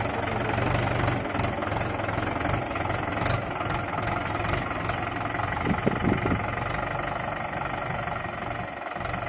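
Mahindra 575 DI tractor's four-cylinder diesel engine idling steadily.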